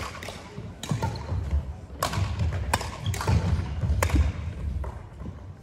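Badminton racket strikes on a shuttlecock, several sharp hits spaced irregularly, a second or so apart. Footsteps thud on the wooden court floor between them, and the hall's echo follows each hit.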